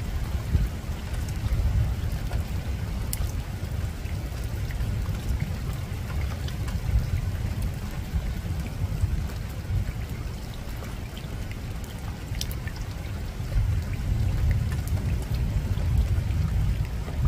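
Soft rain falling on a rooftop, single raindrops ticking sharply now and then over a steady low rumble.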